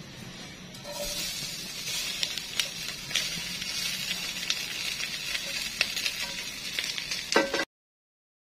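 Sautéed vegetables sizzling as they are scraped from a pan into a hot stainless-steel wok, starting about a second in, with sharp clicks of a spatula against the metal. A louder clunk comes near the end, just before the sound cuts off.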